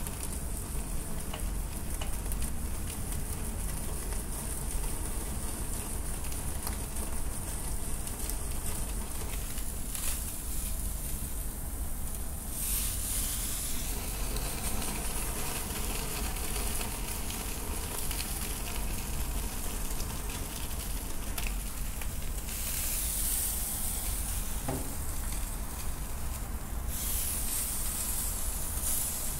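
Raw tuna loin sizzling on a wire rack held over the open flame of a portable butane stove, the fish's oil hissing as its surface is seared for tataki. The sizzle is steady, and it turns louder and hissier for a moment about halfway through and again for several seconds near the end.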